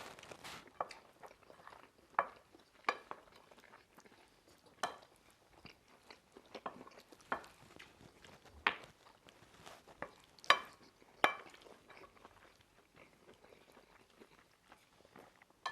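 Cutlery clinking and scraping against plates in sharp, irregular strikes, with quiet chewing between, as people eat hurriedly.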